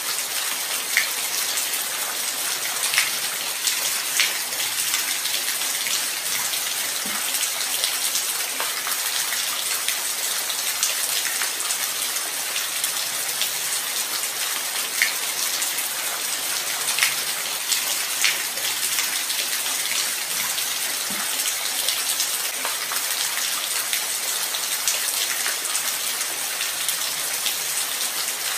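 Light rain falling steadily: an even, high-pitched hiss with scattered sharper drop ticks, some landing close.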